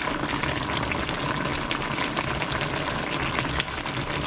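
Chicken adobo sauce simmering in a pan, a steady bubbling and sizzling crackle.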